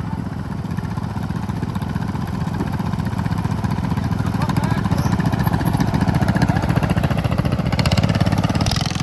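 Riding lawn mower's small engine running, getting louder a few seconds in and then holding steady.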